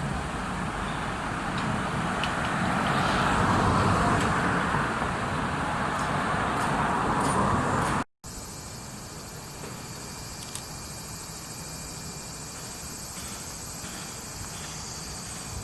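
Passing road traffic, its noise swelling and easing over several seconds, then a sudden cut to a quieter, steady outdoor hum with a high hiss.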